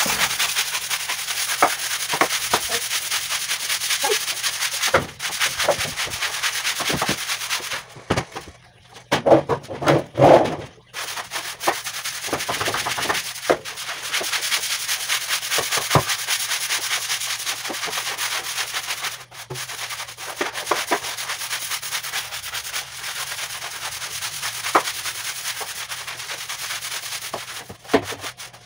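Broom scrubbing a wet floor in quick back-and-forth strokes, a steady hissing scrape. About eight seconds in the scrubbing pauses for a few louder knocks.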